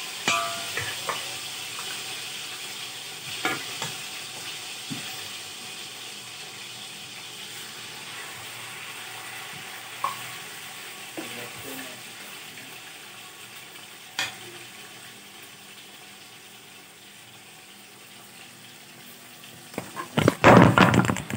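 Marinated chicken sizzling as it is spooned into hot oil in a large aluminium pot: a steady frying hiss that slowly dies down, with a few sharp spoon knocks on the pot. A burst of loud knocking and rubbing near the end.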